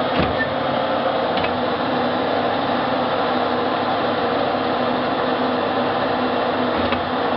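Steady hum of a hydraulic press's electric pump unit running, with a few faint clicks.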